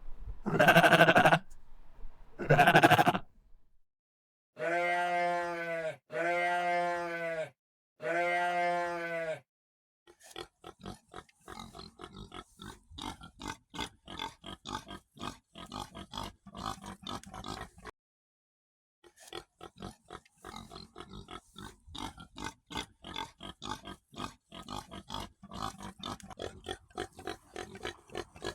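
A run of farm-animal sounds: two loud cries, then the same pitched call three times, then many fast, irregular pig grunts that go on to the end with a short pause midway.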